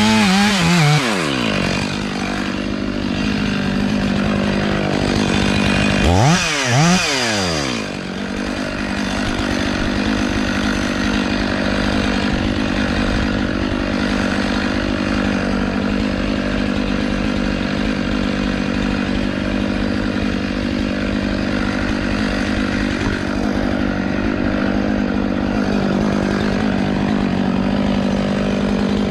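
Gas chainsaw revving up and back down at the start and again about six seconds in, then running steadily at a constant speed.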